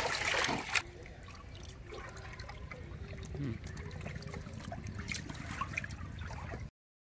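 Live fish thrashing and splashing in a shallow tarp-lined tank of water: a loud splash at the start, then softer trickling, dripping and small splashes. The sound cuts off suddenly near the end.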